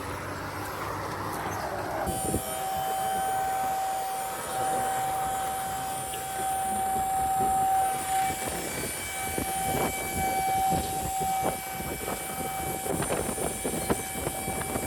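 Steady mechanical whine, most likely the dump trailer's electric hydraulic pump tipping the bed, cutting in abruptly about two seconds in after a stretch of rushing noise, with scattered knocks and rattles toward the end.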